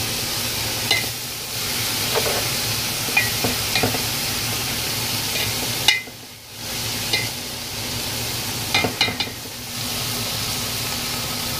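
Diced tomatoes frying with browned onions in hot oil in a large metal pot, sizzling steadily while a spatula stirs, with short scrapes and clinks against the pot every second or so. The sizzle dips briefly about six seconds in.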